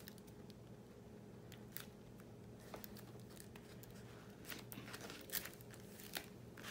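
Faint, scattered crinkles and rustles of a diamond painting canvas's clear plastic cover film as it is handled, over a faint steady room hum.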